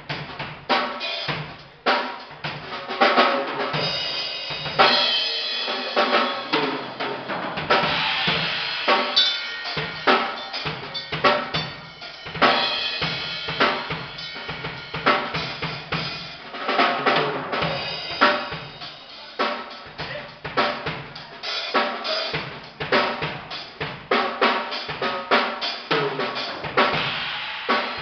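A drum kit being played at a band's sound check: steady rhythmic bass drum and snare hits with ringing cymbals.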